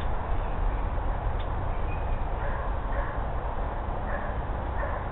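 Dogs barking faintly, a few short barks over a steady low rumble.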